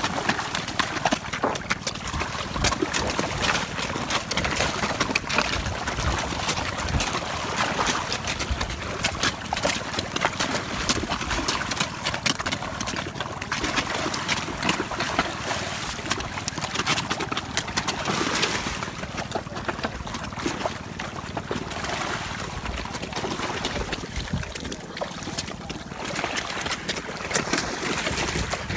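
Giant snakeheads splashing at the water surface as they feed at a mesh feeding tray in a fish cage: a continuous mass of small, rapid splashes and slaps of water.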